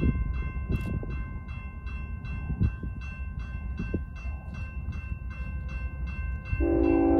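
Level-crossing warning bell ringing in a steady, fast rhythm of about two to three strikes a second, over a low rumble. About six and a half seconds in, an approaching BNSF diesel freight locomotive's multi-note air horn starts sounding and holds, louder than the bell.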